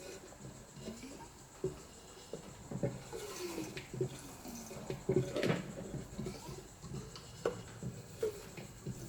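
Motorcycle front fork, freshly filled with fork oil, being pumped by hand: irregular wet squelches and gurgles with light knocks as air is worked out of the oil.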